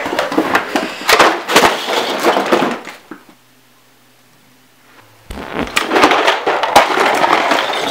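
Loud clattering and crashing of a scuffle, with many sharp knocks in quick succession; it breaks off for about two seconds midway, then starts again.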